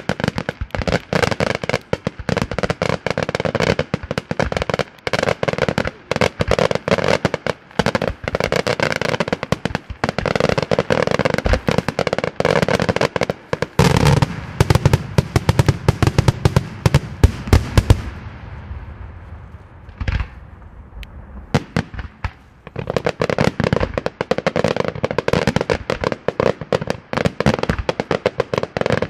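Daytime aerial fireworks going off in a rapid, dense barrage of bangs and crackling reports. About halfway through the reports grow heavier, then a lull of a few seconds is broken by one loud bang before the rapid barrage resumes.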